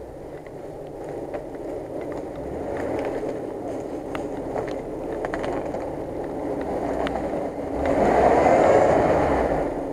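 Jeep Wrangler Rubicon off-roader crawling up onto a fallen birch log, its engine running under load with scattered sharp clicks and cracks. The engine and tyre noise swell louder for about two seconds near the end.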